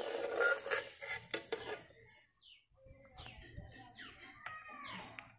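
A metal ladle scraping and clinking in a kadai of hot oil as the fried potato pieces are scooped out, loudest in the first second and a half. After that, birds call with a run of short falling whistled notes.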